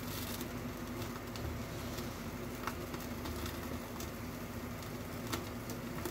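Gas stove burner flame burning steadily under skewered potatoes on a wire grill, with a few sharp crackles as brushed-on ghee drips into the flame. A steady low hum runs underneath.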